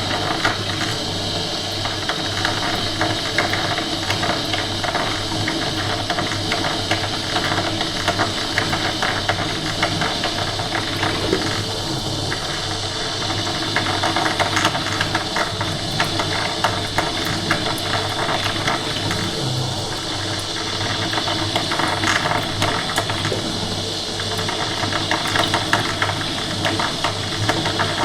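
Coffee machine running: a steady mechanical hum with a dense, fast rattle and hiss throughout.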